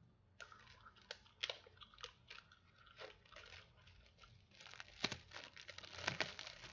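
Faint crinkling and tearing of the plastic shrink wrap being peeled off an Apple AirPods box, with scattered small crackles that get busier in the second half.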